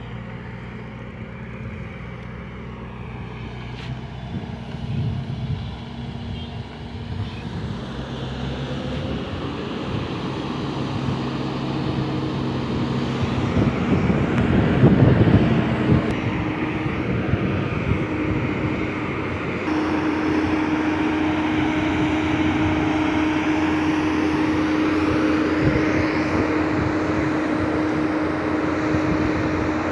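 Diesel engine of a single-drum road roller running steadily. It grows louder to a peak about halfway through, then holds at a steady hum.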